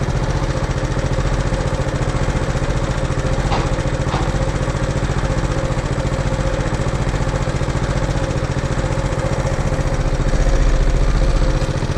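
Old farm tractor engine running steadily at high RPM, with a fast, even beat and a steady hum over it; about ten seconds in it gets louder and deeper.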